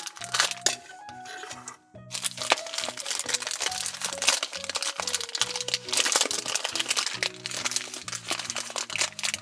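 Shiny black plastic blind bag crinkling as hands pull it from a toy carrier and open it, over background music with a stepped melody and bass line. Both break off briefly just before two seconds in.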